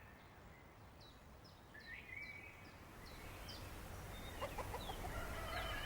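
Birds calling faintly: a run of about eight short, high, falling chirps, then a busier burst of lower calls with short clucking notes near the end.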